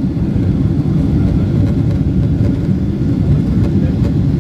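Steady low rumble and rush inside the cabin of a Boeing 777-300ER climbing after take-off: its GE90 jet engines and the airflow over the fuselage.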